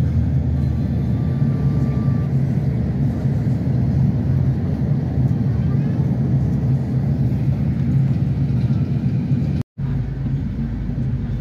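Steady low road rumble heard from inside a moving vehicle, with a brief complete dropout near the end.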